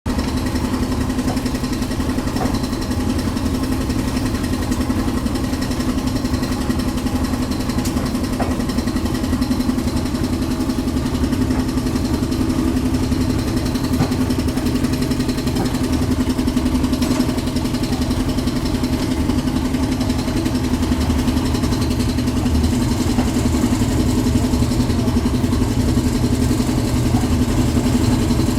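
Concrete mixer's engine running steadily, a constant drone with a few faint clicks and knocks over it.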